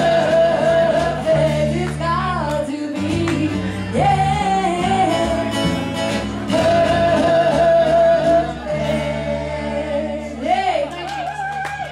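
Live acoustic band: a woman singing long held notes over acoustic guitars, double bass and hand drums, the song winding down near the end.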